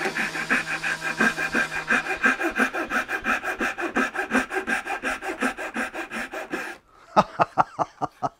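Suizan dozuki Japanese pull saw cutting through a small block of hardwood in quick, even strokes, about four to five a second. The strokes stop abruptly near the end and are followed by a few short sharp sounds.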